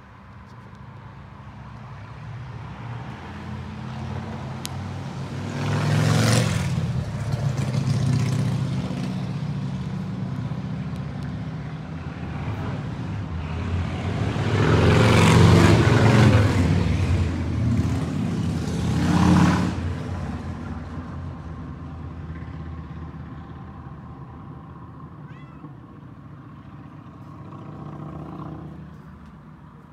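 A motor vehicle passing by. Its engine rumble builds over several seconds, is loudest about halfway through, then fades away.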